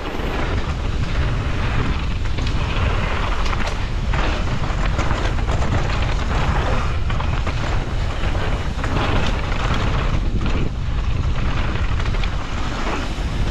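Wind rushing over the microphone as a mountain bike descends at speed, its tyres rolling over dry dirt trail, with frequent short knocks and rattles from the bike over bumps.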